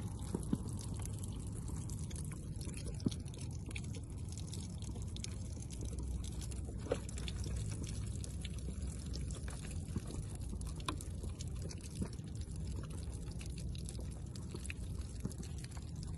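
Full plastic gallon water jugs being picked up and set down in a row: water sloshing inside them and a few light knocks, over a steady low rumble.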